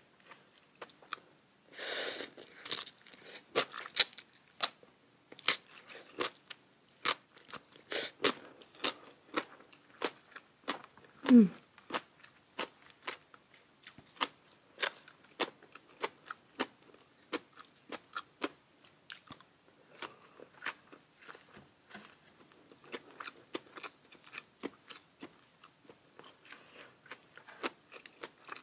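Close-miked eating: a person biting and chewing crisp food, with many sharp crunches throughout and a short falling hum about eleven seconds in.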